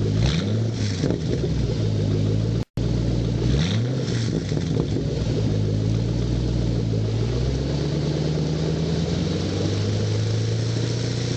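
2006 Mustang GT's 4.6-litre V8 idling through its exhaust, with two short throttle blips, one right at the start and one about three and a half seconds in. The sound drops out for a split second near the three-second mark.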